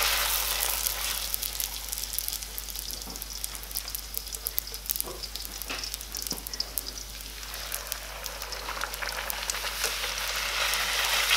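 Semolina puri (raj kachori shell) deep-frying in hot oil while pressed under a ladle, a dense crackling sizzle. It is louder in the first second and again near the end, easing off in the middle.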